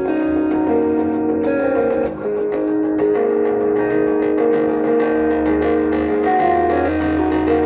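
Rock music with guitars and a bass line, played back through a car stereo's speakers.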